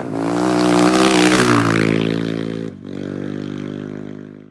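Motorcycle engine sound as an outro sting, swelling to its loudest about a second in, dropping off sharply near three seconds, then running on more softly and fading out at the end.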